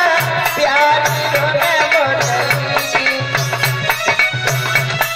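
Live Indian folk devotional music: an instrumental melody line over a steady, repeating low drum beat, with no singing for most of the stretch.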